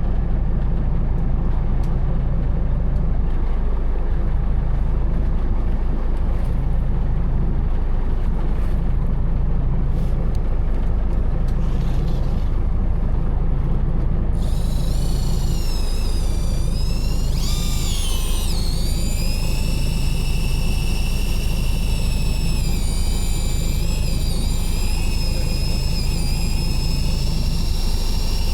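A fishing boat's engine running steadily with a low rumble. About halfway through, a high-pitched wavering whine joins it, shifting in pitch and holding on.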